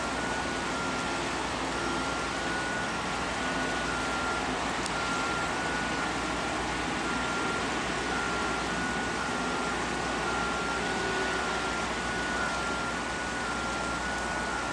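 Construction machinery running steadily: an even engine noise with a thin high whine that steps slightly up and down in pitch throughout.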